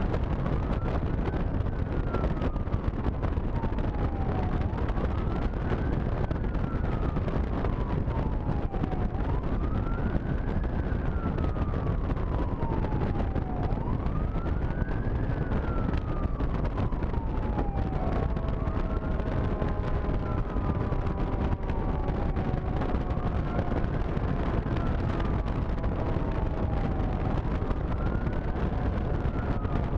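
Fire engine's siren sounding a wail, rising quickly and falling slowly about every four and a half seconds, over the truck's engine and road noise with wind buffeting the microphone. In the last third several steady, slowly falling tones join the wail.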